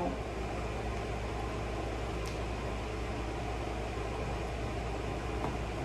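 Steady low hum and hiss of room background noise, like a fan or air conditioning, with one faint click about two seconds in.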